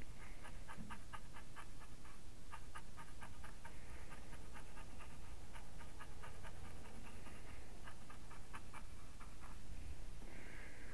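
Small paintbrush dabbing acrylic paint onto hardboard: quick light taps, about four or five a second, in runs with a short break about two seconds in.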